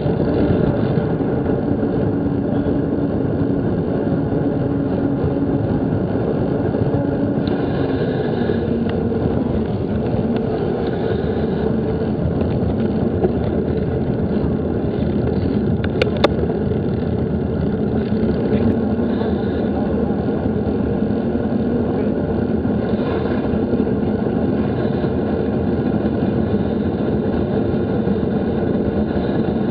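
Steady rushing riding noise of wind and road rumble on an action camera's microphone, with a faint hum under it that shifts slightly in pitch. A single sharp click about sixteen seconds in.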